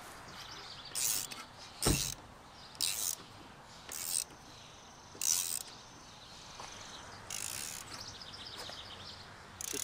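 A gloved hand swatting at wasps: about seven short swishes through the air, one ending in a dull thud about two seconds in, with faint insect buzzing between them.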